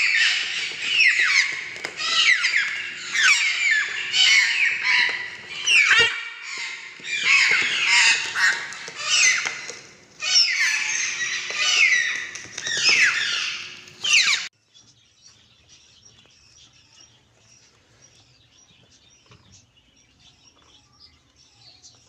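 Blue-and-gold macaw chick squawking over and over, harsh calls that each drop in pitch, coming in quick runs. They cut off abruptly about two-thirds of the way through, leaving only faint high chirping.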